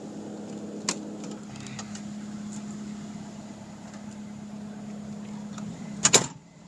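Steady low hum from the Cat 299D compact track loader, with a click about a second in. Near the end comes a loud clunk of the cab door shutting, and the hum turns quieter and muffled straight after.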